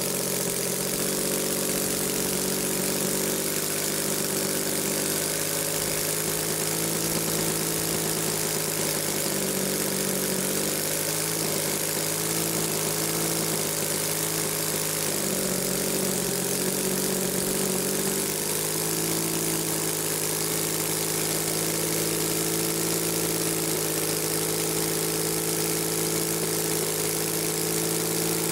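Scratch-built three-cylinder two-stroke radial engine with rotating cylinders running steadily; its even pitch shifts briefly a few times midway, then settles.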